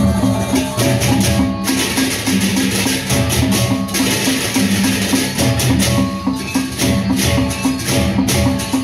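Gendang beleq, the Sasak gamelan of Lombok, playing: large barrel drums beat a quick, steady rhythm under repeating pitched gong notes, with bursts of clashing cymbals over the top.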